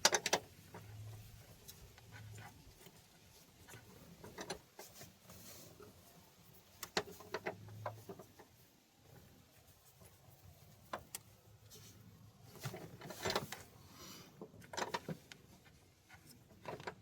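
Scattered metal clicks and clinks of wrenches being fitted onto and worked against a stuck bolt on a car's front suspension, coming in short irregular clusters.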